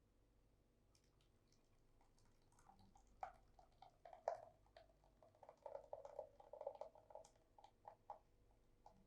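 Faint wet squishes and light irregular clicks of batter being stirred together in a mixing bowl, busiest in the second half.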